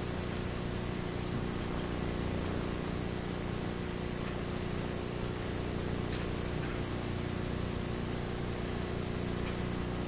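Steady hiss with a low, even electrical hum, the background noise of an old recording; no distinct event stands out.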